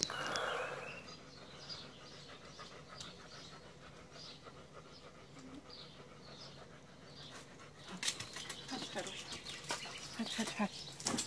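Dogs panting quietly, then from about eight seconds in a run of short clicks and scuffs as the dogs shift about, claws on paving stones.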